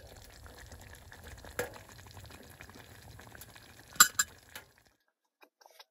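Beef stew simmering in a camp pot on a wood stove, a faint steady bubbling hiss, with a couple of sharp metal clinks from the pot lid about four seconds in.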